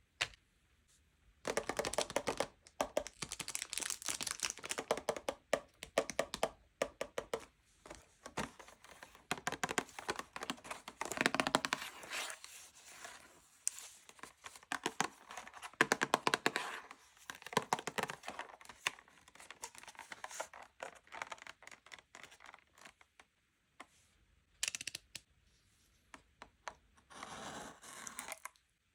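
Packaging being handled during an unboxing: close crinkling and tearing of wrappers, with quick clicks and taps, broken by a couple of short pauses.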